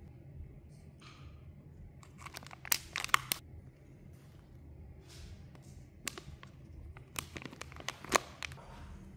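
Crinkling and rustling of plastic air-dry clay pouches and a paper gift bag being handled, with clusters of sharp crackles around three seconds in and again around eight seconds in.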